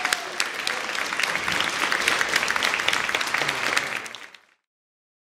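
Audience applauding, dense clapping that fades out about four and a half seconds in.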